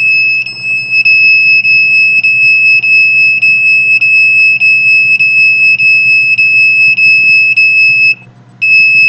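Handheld RF/microwave detector meter sounding a loud, steady high-pitched alarm tone, with a faint tick about every 0.6 seconds. The tone breaks off for about half a second near the end, then resumes. The continuous tone signals a strong microwave signal, which the owner takes for deliberate scanning of her chest.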